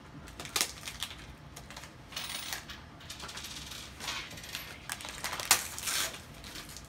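Gift wrapping paper crinkling as it is handled and pulled off a small present: irregular crackles and clicks, the sharpest about five and a half seconds in.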